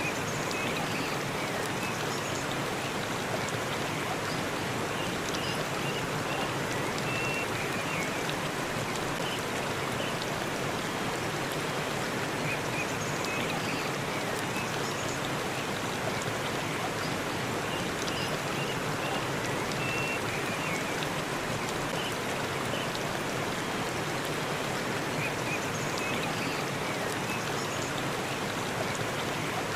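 Waterfall rushing steadily, an even wash of falling water, with faint short high chirps every several seconds.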